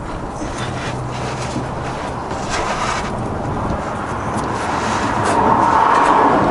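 A car passing on the road, its noise swelling and getting louder in the second half, over a few light clicks of wrench work on the sway bar end link.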